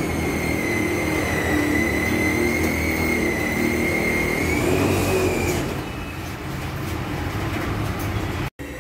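A motor vehicle running on the road, with a steady high whine over its engine rumble that stops about five and a half seconds in. The sound cuts out briefly near the end.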